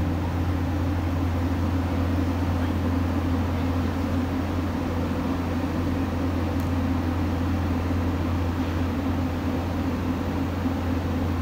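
Marine travel lift running steadily as it hoists a catamaran in its slings, a constant low mechanical drone.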